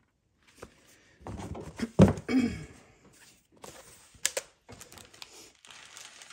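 Paper pads being handled and put down: a heavy thump about two seconds in, then a sharp click and light paper rustling.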